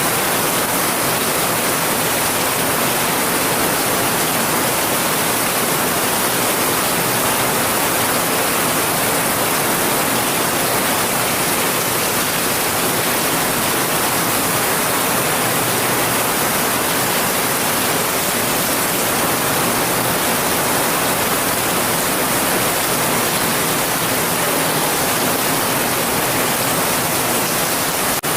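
Heavy rain falling steadily, an even hiss with no breaks, with one brief dip in level near the end.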